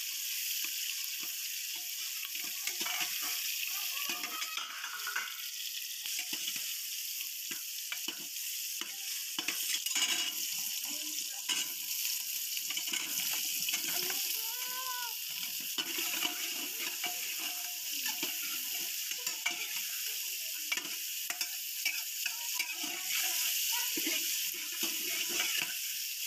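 Potato wedges and spices sizzling in hot oil in a pressure cooker, with a metal ladle scraping and clinking against the pot as they are stirred.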